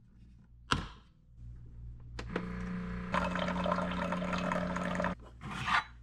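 Keurig single-serve coffee maker brewing: the lid clicks shut, the pump starts humming, and then hot water pours steadily into a travel tumbler for about three seconds before stopping abruptly, followed by a short hiss.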